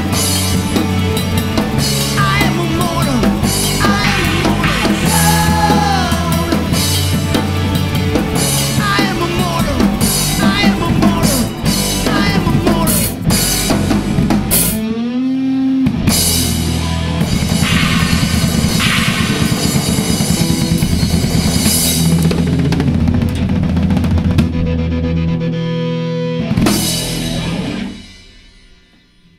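Rock band playing live: electric guitar, bass guitar and drum kit. The music breaks off briefly about halfway, comes back in, and near the end the band plays a final hit that rings out and fades away as the song ends.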